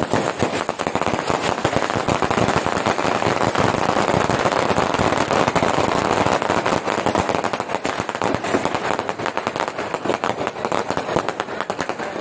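A string of firecrackers going off in a dense, rapid run of pops, continuing without a break for about twelve seconds.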